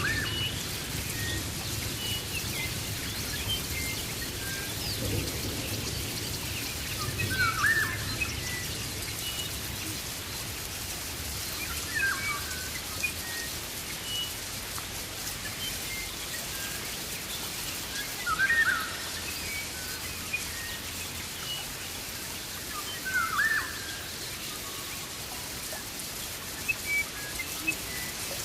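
Rainforest ambience: a steady hiss of rain with a bird giving a short sweeping call about every five seconds and scattered small high chirps. A low rumble fades out during the first several seconds.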